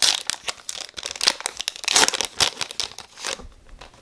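Foil wrapper of a Topps Chrome baseball card pack being torn open and crinkled by hand: a string of crackly tearing and rustling sounds that stops about three and a half seconds in.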